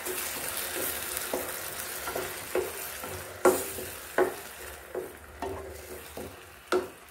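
Chopped onions and tomatoes sizzling in oil in a stainless steel kadai while a wooden spatula stirs them, scraping and knocking against the pan about every half second; the masala is being fried until its raw smell is gone. The sizzle thins out in the second half.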